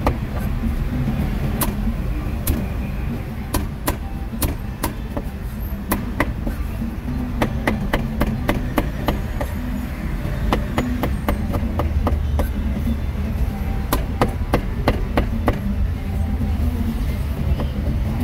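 A cleaver chopping braised pork on a thick wooden chopping block: an irregular series of sharp knocks, some in quick runs, over a steady low background hum.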